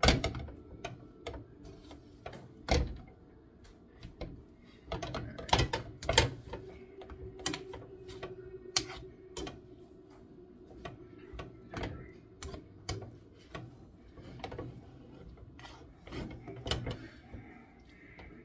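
Cooking utensils, a slotted spoon among them, clicking and scraping against a nonstick skillet as noodles are tossed and stirred: irregular clacks and knocks throughout.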